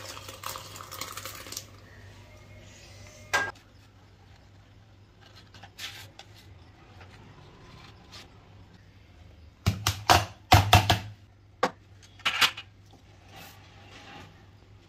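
Cooked rasam splashes as it is poured from a pan into a steel pot. Then comes kitchen clatter of a knife working in an aluminium baking tin and on a steel plate, with a quick cluster of sharp metal clinks and knocks about ten seconds in.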